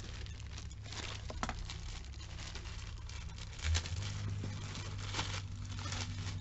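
Thin clear plastic bag crinkling and rustling in irregular bursts as a blouse is handled and taken out of it.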